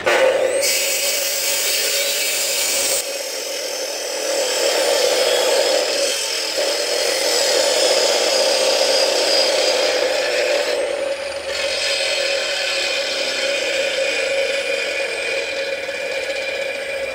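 Electric miter saw starting up abruptly and cutting through a thick square timber post, its motor running at one steady pitch with a whine. About three seconds in, the high hiss drops away suddenly while the motor goes on.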